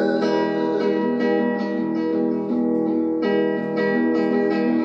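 Acoustic guitar strummed in a steady rhythm: an instrumental passage of a song.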